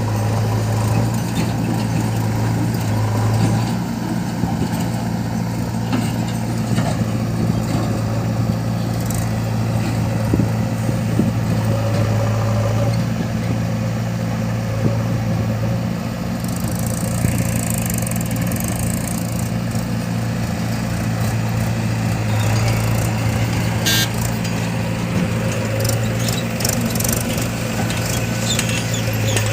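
Diesel engine of a backhoe loader running steadily at working speed, an even low drone with a few sharp knocks of the loader at work.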